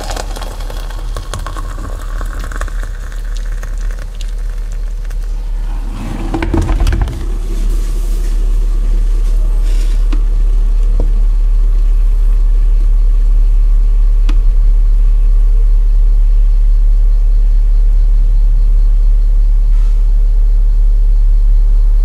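Hot water pouring into a ceramic mug of ground coffee for the first few seconds, over a steady low rumble that grows louder after about seven seconds and becomes the loudest sound.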